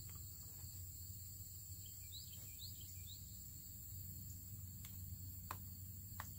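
Quiet outdoor ambience: a steady high insect drone over a low hum, with a few short rising bird chirps about two to three seconds in and a couple of faint clicks.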